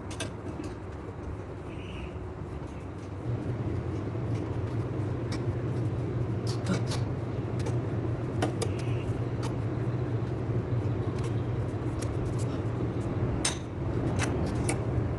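A steady low mechanical hum that steps up in level about three seconds in and holds, with scattered light clicks and knocks over it.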